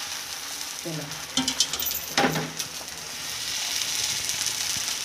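Thin rice batter sizzling steadily in a hot oiled nonstick pan as it sets into a lacy pancake, with a few light clicks about a second and a half in.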